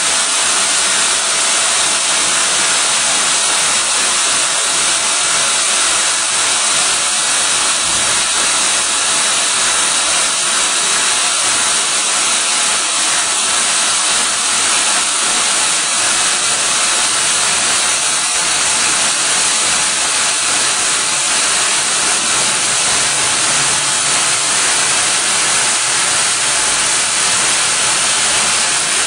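Steady, loud hiss of air blowing from cooling nozzles aimed at the rotating friction stir welding tool as it welds aluminium plate, with faint steady machine tones underneath.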